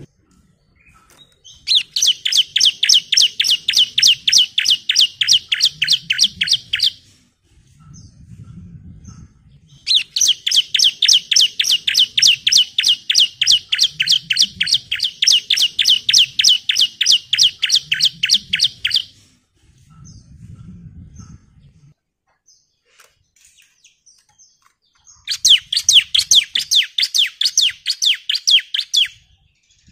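Bar-winged prinia (ciblek) singing its rapid 'nembak' song: three long runs of fast, evenly repeated high chirps, about five a second, separated by short pauses.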